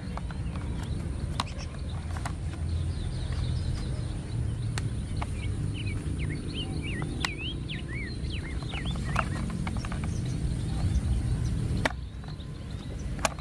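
Scattered sharp clicks of a hard plastic toy truck transporter case being handled, its clear plastic lid and panel being worked, over a steady low rumble. Birds chirp in the background, mostly in the middle.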